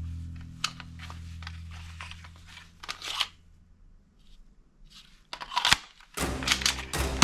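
Sharp plastic clicks and clacks of a toy gun being handled and worked, over background music that fades out partway through and comes back about six seconds in.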